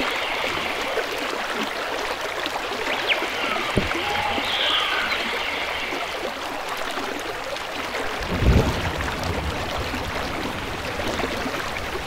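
Steady outdoor background hiss, with a few faint short chirps about three to five seconds in and a brief low rumble about eight and a half seconds in.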